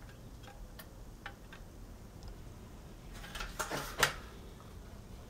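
Handling sounds: a few faint clicks, then a cluster of knocks and rustling from about three seconds in, with the sharpest click about four seconds in.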